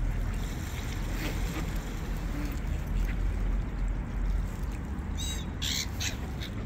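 A few short, harsh bird calls near the end, over a steady low rumble.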